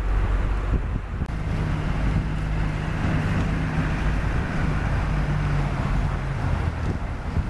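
Heavy diesel construction machine engine running steadily, its hum firming up about a second in and easing near the end, over a steady hiss.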